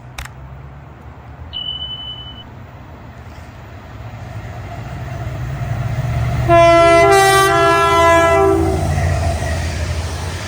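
An approaching train's rumble grows louder, and about six and a half seconds in it sounds its horn, two notes together for about two seconds, as it comes past.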